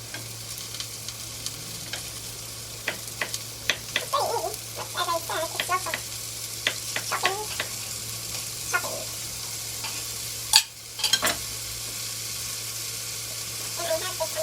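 Mushrooms, onion and garlic sizzling as they fry in a pan, with a utensil stirring and scraping against the pan at intervals. A single sharp click about two-thirds of the way through.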